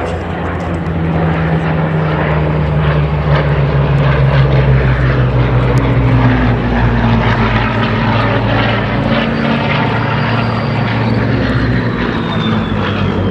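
Supermarine Spitfire's V12 piston engine droning as it flies an aerobatic display, growing a little louder midway and sagging slowly in pitch. A thin high whine glides downward in the last few seconds.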